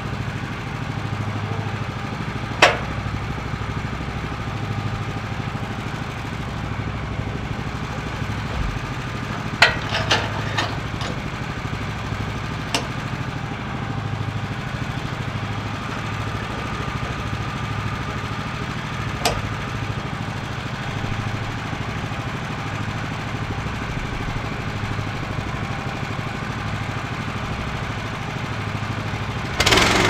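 Woodland Mills portable sawmill's small gas engine idling steadily, with a few sharp knocks from handling the log on the mill bed. Near the end the sound suddenly gets much louder.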